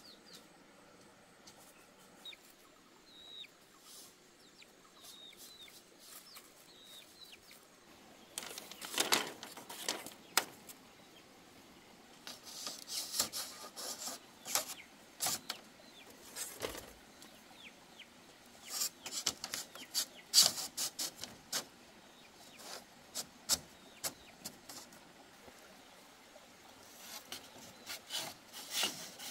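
Split bamboo strips knocking, rattling and scraping against a bamboo fence as they are woven in. The knocks come in irregular clusters from about a third of the way in, and a few faint high bird chirps come before them.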